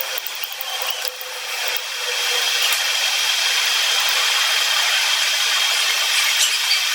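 Power tool grinding metal teeth: a steady grinding noise that grows louder about two seconds in and then holds.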